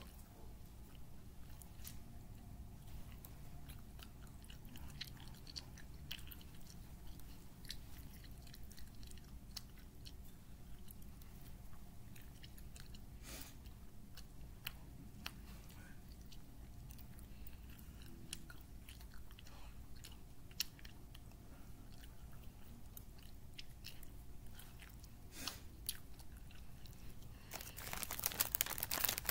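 A person chewing Twizzlers licorice candy close to the microphone: soft, wet mouth clicks scattered throughout over a low steady hum. A louder rustle starts near the end.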